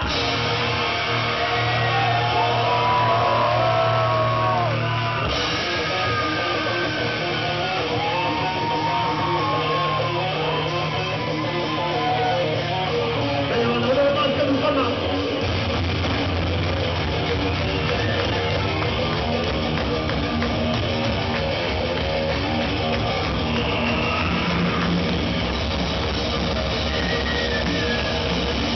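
Live rock band playing full-on with electric guitars and drums, loud and dense throughout.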